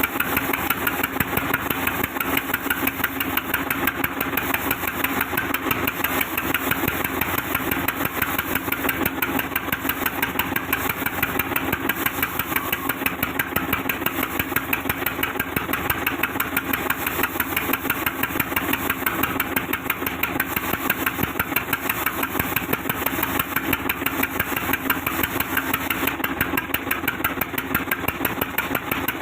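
Sawmill machine running steadily, with a fast, even pulsing beat and a steady low hum.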